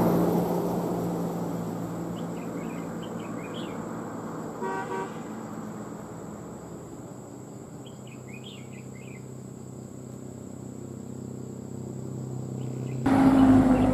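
Low steady engine hum of a nearby vehicle that fades away, then jumps back up sharply near the end. A short horn toot sounds about five seconds in, and two brief bursts of bird chirping come through between.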